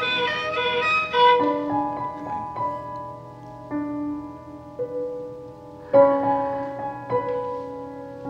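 Background music: a slow cello-and-piano piece. Bowed string notes give way, just over a second in, to piano chords that ring and fade.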